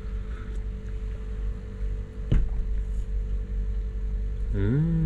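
Steady low rumble with a single sharp click about two seconds in, then near the end a man's long low hum that rises and then falls in pitch.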